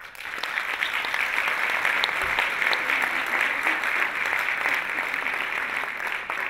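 Audience applause that breaks out suddenly and holds steady, a dense patter of many hands clapping.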